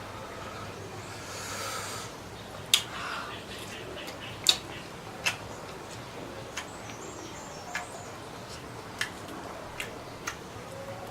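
A person eating squid and shrimp: a string of short, sharp mouth clicks and crunches, about eight of them, spaced irregularly. There is a brief hiss about a second in.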